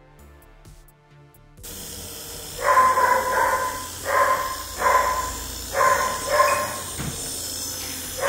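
Background music cuts off about a second and a half in, leaving a steady hiss; then a dog barks about six times, each bark under a second apart.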